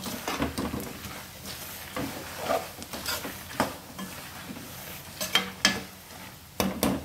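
Metal spatula stirring and scraping a tempering of peanuts, roasted gram, crushed garlic and dried red chillies in a metal pan, with the oil sizzling steadily underneath and irregular scrapes and clinks against the pan, several of them sharper in the second half. The chilli powder just added is frying in the oil.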